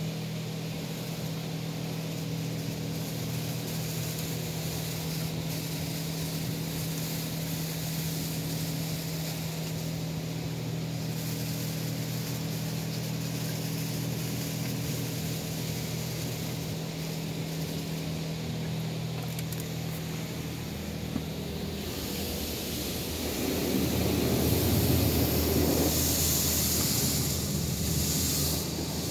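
PDQ LaserWash 360 Plus touchless car wash heard from inside the car: water spray hissing and pattering on the glass and body over a steady machine hum. About 23 seconds in, the spray gets louder and rougher as the high-pressure jets pass over the car.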